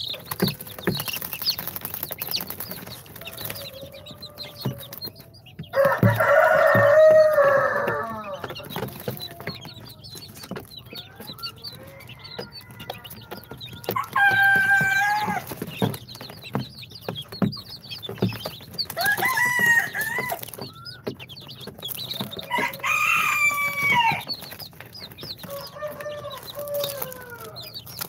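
Young chicks peeping in short, high chirps. Four times, a louder drawn-out call from an adult chicken cuts in, each lasting one to two seconds.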